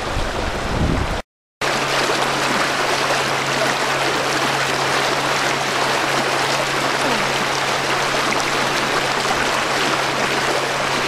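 Steady rushing of shallow flowing floodwater, with a low steady hum underneath. The sound breaks off briefly about a second in.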